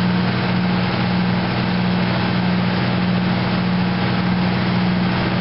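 Fire engine's diesel engine running steadily: a constant low hum under an even rushing noise.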